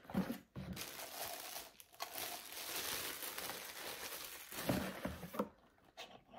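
Clear plastic packaging bag crinkling and rustling as a small black coffee maker is pulled out of it and handled, with a few light knocks near the end.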